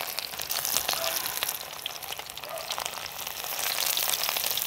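Hot oil sizzling around pemuche-flower and egg fritters frying in a pan, a dense, even run of fine crackles.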